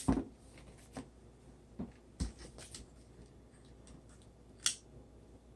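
Scattered clicks and knocks of a pan head being screwed down onto a tripod and handled: a heavier thump at the start, several lighter knocks in the first three seconds and a sharp click near the end.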